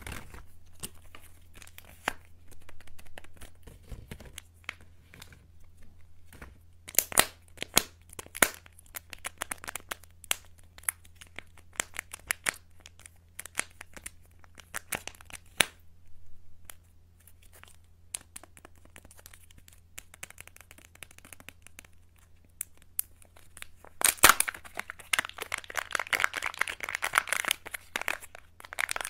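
Kinder Joy eggs' foil-plastic wrappers crinkling and tearing as fingers handle and peel them, with scattered sharp clicks and crackles. The crinkling becomes dense and continuous about five seconds before the end as a wrapper is peeled off.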